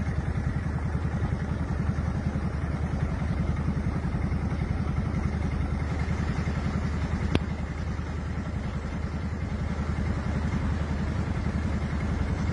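Motor vehicle engine running steadily with an even low pulse, and a single sharp click about seven seconds in.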